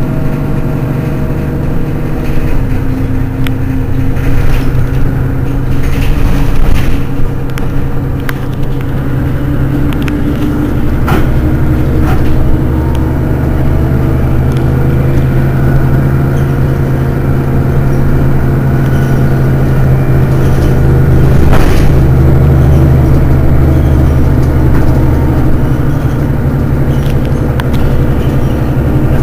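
Mercedes-Benz Citaro city bus engine idling at a standstill, a steady low hum that swells slightly about halfway through, with a few short sharp clicks over it.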